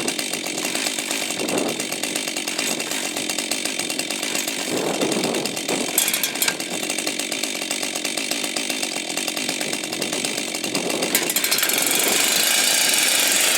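Two-stroke chainsaw engines running, with two brief swells early on and a step up in loudness about three-quarters of the way through.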